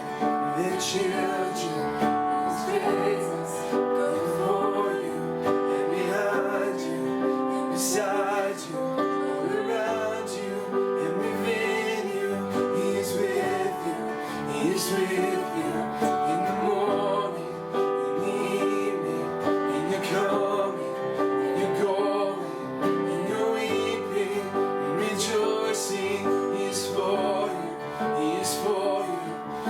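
Slow worship song: sustained chords with piano, and voices holding long sung notes.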